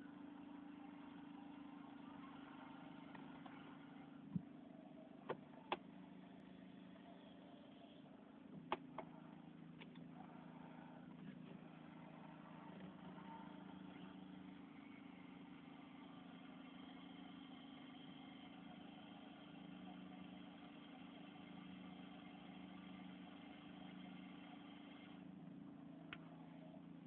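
Vauxhall Astra H power steering making a hissing noise as the wheel is worked, over a steady low hum from the running car, with a few sharp clicks in the first nine seconds or so. The steering is very stiff to turn, and two replacement pumps have not cured the noise.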